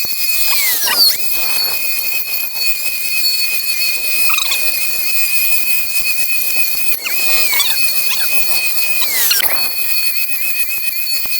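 Milwaukee M18 Fuel cordless strimmer with a metal cutting blade, its motor running with a steady high-pitched whine while cutting grass and reeds. The pitch drops sharply and recovers about half a second in, around seven seconds and again around nine seconds, as the blade is loaded by tougher growth.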